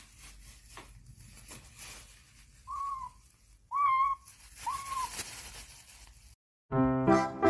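An animal calling three times in quick succession, each call short and pitched, rising then falling. Music starts near the end.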